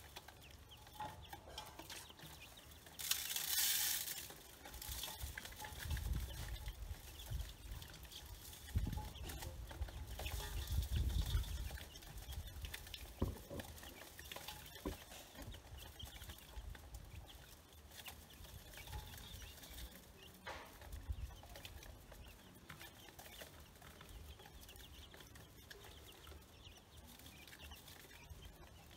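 A small flock of chicks and ducklings peeping and cheeping while they feed, faint and scattered. A short hiss comes about three seconds in, and there are low rumbles around six and ten seconds in.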